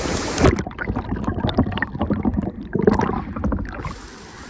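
Splashing and gurgling water as a swimmer enters a waterfall plunge pool; about half a second in the sound turns muffled, as if heard from underwater, with a run of splashes and bubbling, and it clears near the end to a quieter steady rush of water.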